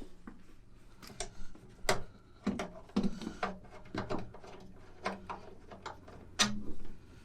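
Irregular clicks and knocks of seatbelt hardware being handled and moved into place, about a dozen sharp taps spread unevenly, over a faint low hum.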